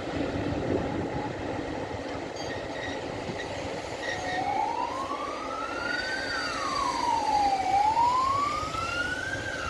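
Train running on the rails, a steady noisy rumble. About four seconds in, a siren starts wailing over it, rising slowly, falling and rising again.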